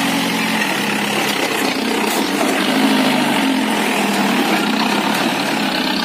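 Engine of a modified off-road jeep running steadily at low revs as it crawls over a muddy trail, with a small lift in revs about halfway through.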